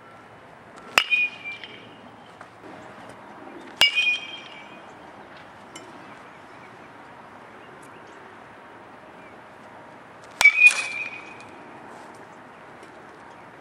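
A metal baseball bat hitting a ball three times: about a second in, just before four seconds and a little past ten seconds. Each hit is a sharp ping with a short ring after it.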